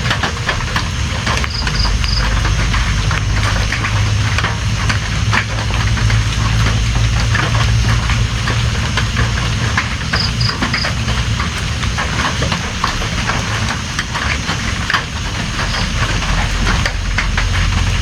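Steady rain, a dense patter of drops over a low rumble. Three short high peeps come twice, about two seconds in and again about ten seconds in.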